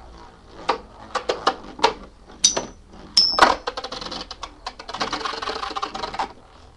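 Two Beyblade Metal Fusion spinning tops, Capricorn and Rock Aquario, battling in a plastic stadium. Separate sharp clacks as they strike each other and the wall give way, about three and a half seconds in, to a fast rattling clatter that stops after about six seconds.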